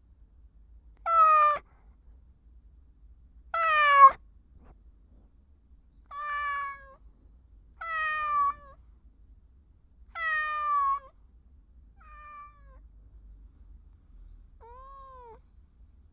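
Domestic cat meowing over and over: six meows about two seconds apart, each sliding slightly down in pitch. The first two are the loudest and the last is faint. Near the end comes one short, soft call that rises and falls.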